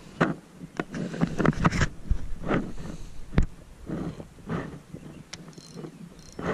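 Choppy lake water slapping against a small boat's hull and wind buffeting the microphone in uneven gusts, with a sharp knock about three and a half seconds in.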